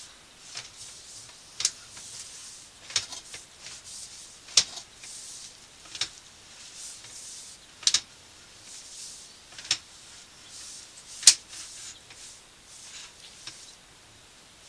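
Sewer inspection camera gear clicking and knocking as the camera is pushed along the pipe: eight or so sharp clicks spread every second or two, over a faint hiss.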